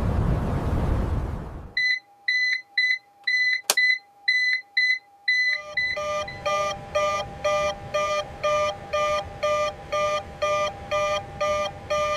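A loud rushing noise for about the first two seconds, then a cockpit warning alarm: high, shrill beeps at about two to three a second, with a single sharp click partway through. About halfway through, a lower, fuller-toned alarm takes over, beeping at the same quick rate over a steady hum.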